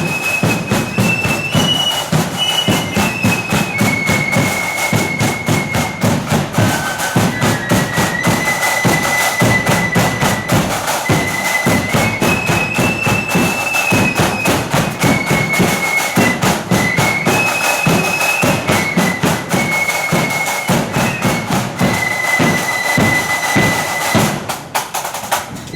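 Marching flute band playing a tune: a high, piercing flute melody over loud, dense snare and bass drumming. The music falls away near the end.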